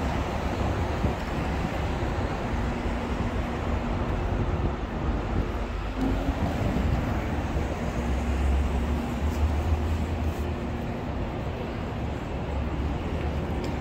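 Steady Manhattan street traffic noise: vehicles running past with a low rumble and a faint steady hum through the middle.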